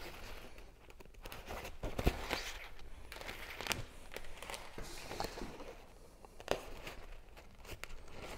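Hand-sewing a kayak skin seam: needle and thread drawn through the fabric, with irregular rustling and a few sharp clicks.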